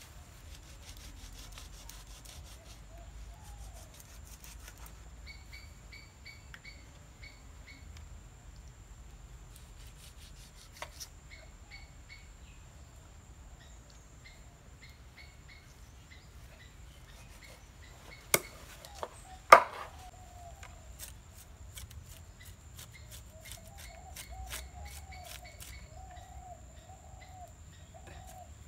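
Knife scraping along a whole tuna on a wooden cutting board in short strokes, with two loud knocks of the blade on the board a little past halfway.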